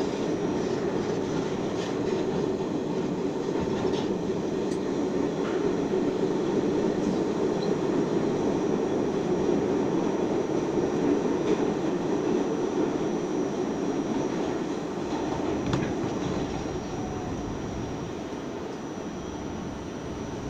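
R68A subway car running through a tunnel, a steady loud rumble of wheels on rail with a few sharp clicks. It gets quieter over the last few seconds as the train comes into a station.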